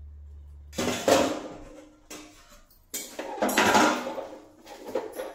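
Metal spatula scraping and clanking against a steel kadhai while stirring cooked beetroot rice, in irregular strokes. A low steady hum stops just under a second in.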